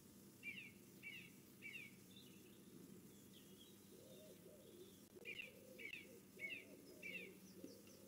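Garden birds calling faintly: two runs of short, high, downward-slurred chirps repeated about every half second, three near the start and four later on. A lower wavering call sounds underneath from about halfway.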